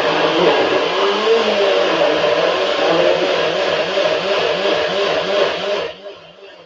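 Electric blender running loud, blending a thick curry paste of chillies, garlic, spices, tomato puree and coriander with a little water. Its motor pitch wavers under the load, and it cuts off about six seconds in.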